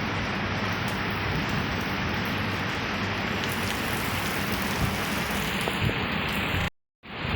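Steady rain falling in a thunderstorm, an even hiss with a few scattered drop ticks, broken by a brief dropout to silence near the end.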